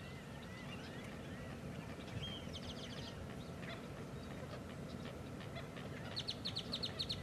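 Wild marsh birds calling: a quick run of high, evenly spaced notes about two and a half seconds in, and a longer run of about nine notes a second near the end, with a few short chirps over steady outdoor background noise.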